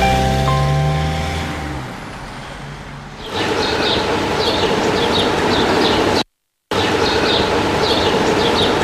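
Background music with held notes fading out, then the steady noise of city street traffic with repeated short, high chirps over it. The sound drops out completely for half a second a little past the middle.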